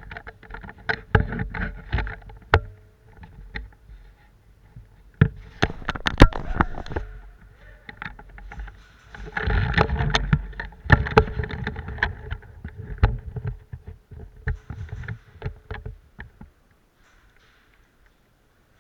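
Rumbling movement and handling noise with many scattered sharp clicks and knocks, stopping about two seconds before the end.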